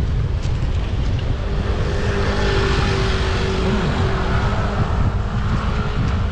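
Wind buffeting the microphone of a moving bicycle rider, with a motor vehicle passing close by: its engine and tyre noise swell about two seconds in and fade again near the end.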